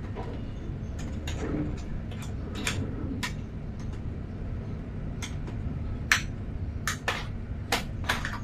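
Irregular sharp clicks and handling noise as a keyboard's cable is freed from its tie and unwound, over a steady low hum.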